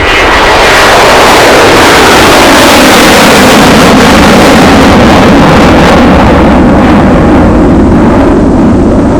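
Motorboat running at speed: a loud, steady mix of engine and rushing water and wind that swells up over the first second.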